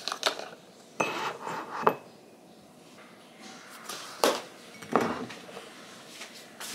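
Ceramic mug and paper cartons handled on a kitchen counter while café au lait and milk are poured into the mug: a handful of short knocks and clinks as the mug and cartons are set down and picked up, with a quieter stretch in the middle.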